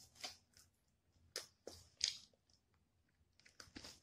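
Close-miked chewing of a fried chicken wing, with a few short crunches spread through.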